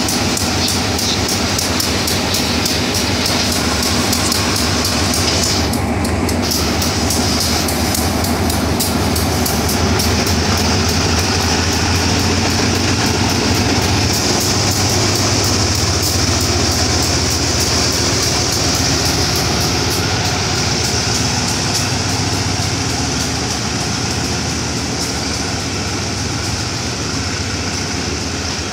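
Diesel-electric locomotive passing slowly at close range, its engine running with a steady low hum. Near the end the passenger coaches roll by, with wheels clicking on the rails.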